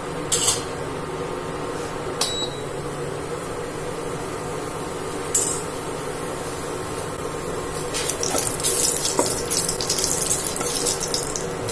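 Cumin seeds sizzling in hot mustard oil in a pressure cooker, with a few sharp pops. From about eight seconds in a wooden spatula stirs them and the crackling gets denser and louder.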